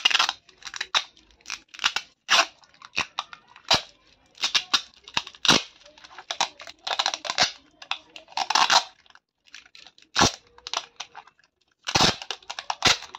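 Clear packing tape being pulled off its roll in repeated short, rasping strips as it is wound around a bundle of lithium-ion cells, with a few sharper clicks in the last few seconds.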